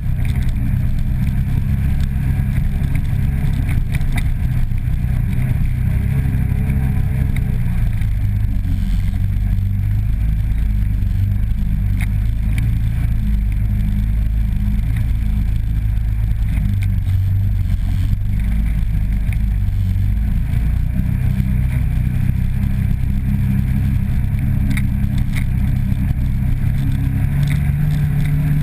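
Polaris 800 twin-cylinder ATV engine running under changing throttle on a rough trail, its pitch rising and falling. Occasional knocks and rattles come from the machine going over bumps.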